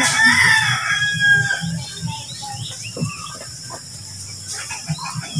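A rooster crowing once, a loud wavering call that fades out about a second and a half in.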